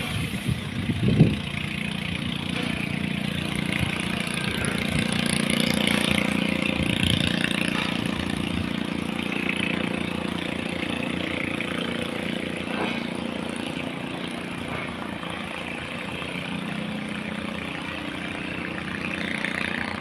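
Boat engine running steadily, growing louder to about six seconds in and then slowly fading. A brief thump about a second in.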